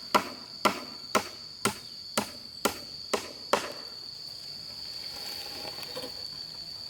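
Steady chopping strikes, about two a second, eight in all, stopping about three and a half seconds in. An insect's high, steady trill runs underneath.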